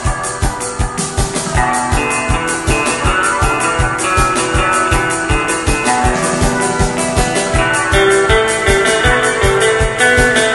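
Background music with a steady, quick drum beat under a melody.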